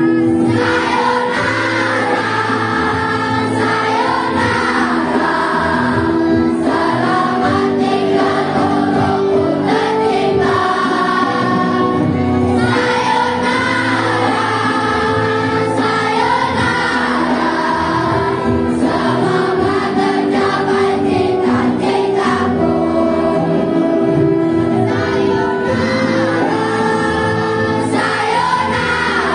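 A choir of primary-school children singing together over an instrumental backing track.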